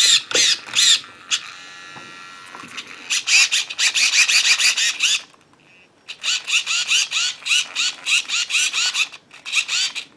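RC car steering servo chattering in rapid bursts, about five a second, each a short rising motor whine. It drops out briefly about five seconds in, then starts again. The twitching is the sign of a faulty receiver: the owner says something is very wrong with it and that it keeps dying and coming back.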